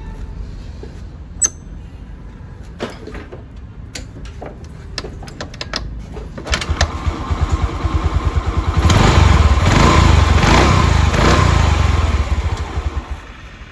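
TVS Jupiter scooter engine running, with a few light clicks at first, then revved up for several seconds and let back down near the end.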